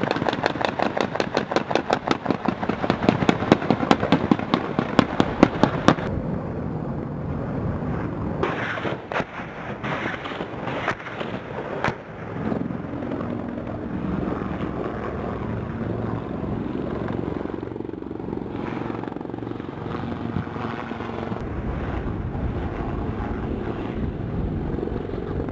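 A long burst of 20 mm M197 rotary cannon fire, a rapid stream of shots, which cuts off abruptly about six seconds in. After it, a Bell AH-1Z Viper attack helicopter's rotors and turbines run steadily as it flies overhead.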